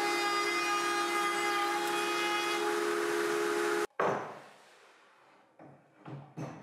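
Makita router in a router table running with a steady high whine, which cuts off abruptly about four seconds in. A wooden knock follows, then a few lighter knocks of wood being handled.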